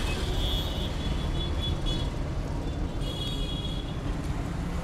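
Road traffic noise: a steady low rumble of passing vehicles, with a faint high-pitched tone near the start and again about three seconds in.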